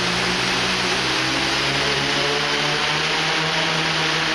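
Six brushless motors and propellers of a large homemade hexacopter running at about half throttle, a steady drone with a slight wavering in pitch, while the craft is held down so it cannot lift off.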